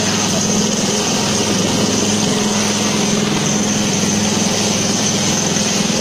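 Helicopter hovering overhead, its turbine engine running steadily and its rotor blades chopping rapidly and evenly.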